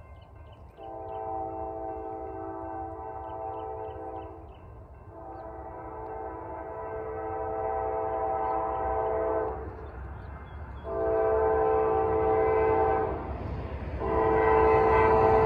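A freight locomotive's multi-tone air horn sounds long, long, short, long, the standard signal for approaching a grade crossing. The blasts grow louder as the train draws nearer, over a low steady rumble.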